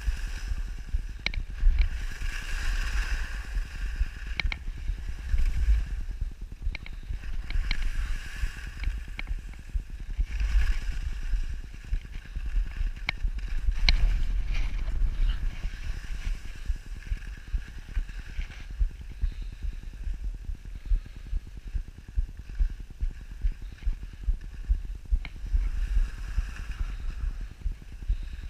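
Skis hissing and scraping over packed snow on a downhill run, the hiss swelling with each turn every few seconds, over constant wind buffeting the action camera's microphone. Occasional short clicks are scattered through it.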